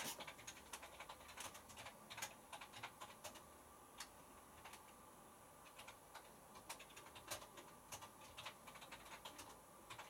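Near silence with faint, irregular ticks and clicks from a Pro Action A105QW front-loading washing machine standing idle after its final spin.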